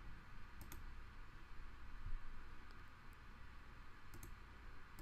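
Computer mouse clicked a few times, mostly in quick pairs, over faint steady hiss.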